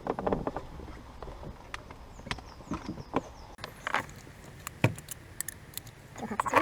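Irregular clicks and knocks from a car's interior trim panel being worked loose by hand.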